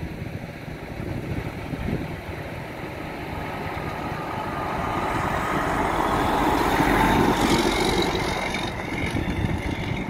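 Freightliner Columbia semi tractor with a 500 hp Detroit Diesel 12.7-litre inline-six driving past. The engine noise grows as the truck approaches, is loudest about seven seconds in, then drops off somewhat as it pulls away.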